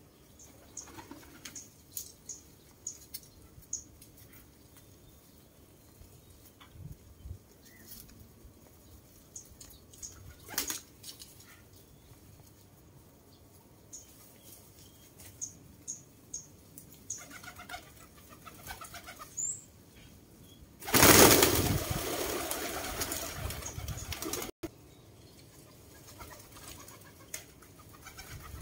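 Fancy pigeons cooing and shuffling about, with scattered small taps and clicks. About two-thirds of the way through comes a loud burst of wing flapping lasting a few seconds.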